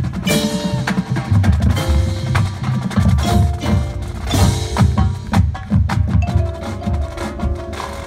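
Marching band percussion playing: drums striking a busy rhythm while mallet keyboards ring out pitched notes over it.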